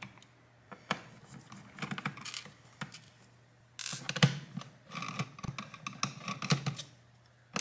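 A screwdriver being picked up and worked at the screws of a Lenovo Legion Y545 laptop's bottom panel: scattered light clicks and taps, busier and louder from about four seconds in.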